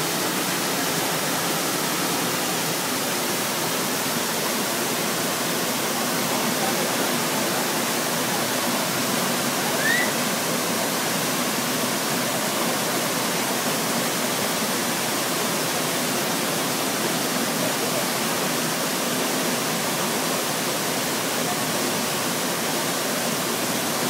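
Waterfall plunging into a rock pool: a steady, even rush of falling water. One brief high rising squeak about ten seconds in.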